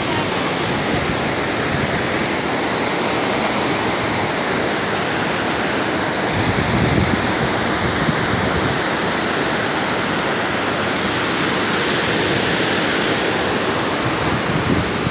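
Muddy floodwater swollen by heavy rain rushing and churning through a channel and over a spillway, a steady, unbroken rushing noise.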